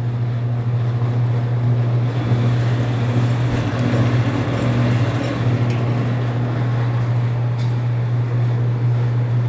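Bluedog BWS-80 HD electric wire stripping machine running with a steady low hum. In the middle few seconds a cable is fed through its cutting channel, adding a rougher scraping noise as the blade slits the insulation.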